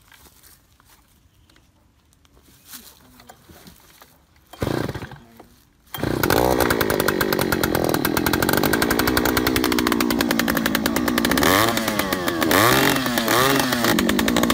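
Oshima 2PS earth auger's 54 cc two-stroke engine starting about six seconds in, after a short burst of noise, then running fast and steady, revved up and down a few times near the end.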